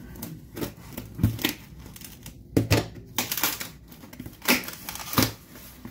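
A folding knife slicing into a cardboard shipping box, the cardboard crunching and tearing in a run of irregular sharp strokes.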